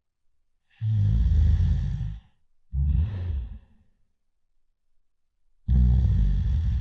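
A person snoring loudly in slow cycles: a long snore about a second in, a shorter breath right after, a pause of about two seconds, then another long snore near the end.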